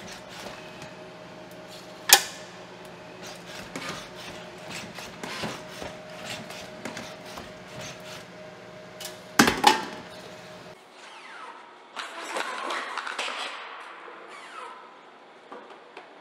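Boston Dynamics SpotMini's electric motors humming steadily as it moves, with dishes and glass clinking. There is a sharp clink about two seconds in and a loud clatter near ten seconds. The hum then stops abruptly, and a different, noisier whirring mechanical sound follows for a couple of seconds.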